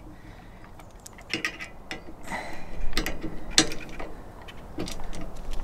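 Socket ratchet clicking and metal clinking as a hex-head bolt with washer is run into the headache rack's steel bracket: scattered, uneven clicks beginning about a second in, with two louder ones around the middle.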